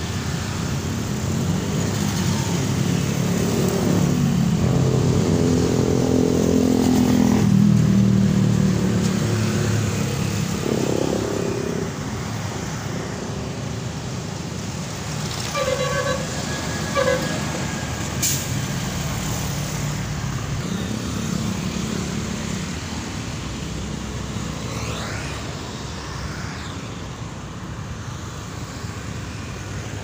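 Congested road traffic: bus and truck engines running and pulling past, with one heavy engine note rising and swelling early on. Near the middle a horn gives two short toots.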